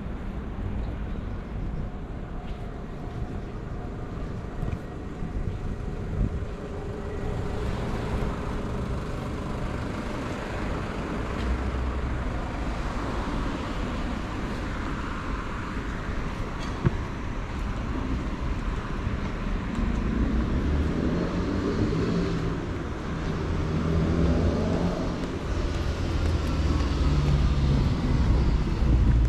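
City street traffic: cars passing with tyre and engine noise, a low engine hum growing louder over the last third, and a single sharp click about halfway through.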